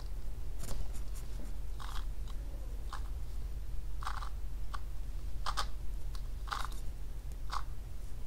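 A YJ MGC magnetic 2x2 speed cube being turned layer by layer, each turn giving a short plastic click, roughly one a second.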